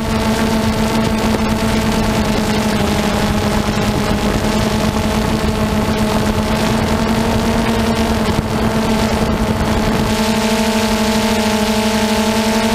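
DJI Phantom 2 quadcopter's motors and propellers whirring steadily as it hovers, a constant-pitched drone with rushing wind noise on the onboard camera's microphone that eases about ten seconds in.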